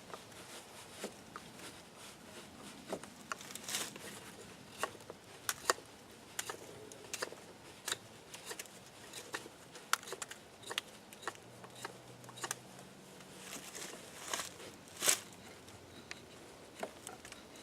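Small fixed-blade bushcraft knife carving wood: a run of short, irregular shaving strokes and clicks as the blade cuts, with a few louder strokes about four seconds in and near fifteen seconds.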